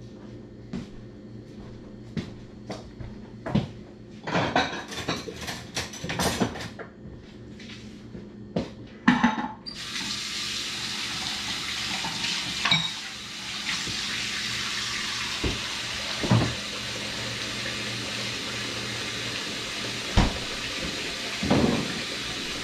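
Knocks and clatter, then about halfway through a kitchen tap is turned on and water runs steadily, with a few knocks over it.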